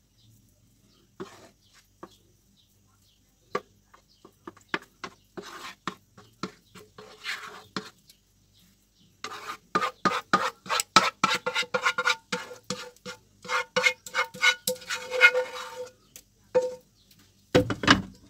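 A spoon scraping and clinking against a frying pan and a ceramic baking dish as thick béchamel sauce is scraped out of the pan and spread over the filling. A dense run of quick scraping strokes with a ringing note fills the middle, and a heavier knock comes near the end.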